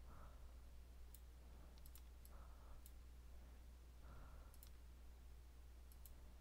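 Faint computer mouse clicks, scattered a second or so apart and some in quick pairs, as the Photoshop clone stamp is dabbed over the image. Under them is a low steady hum, and otherwise near silence.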